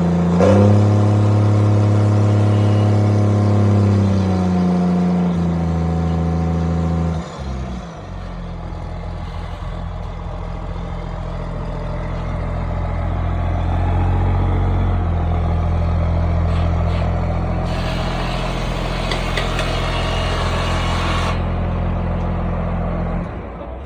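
Case Puma 140 tractor's six-cylinder diesel running loud through a straight-pipe exhaust. It is held at raised revs for the first few seconds, then drops back to a lower steady run about seven seconds in. The sound cuts off abruptly near the end.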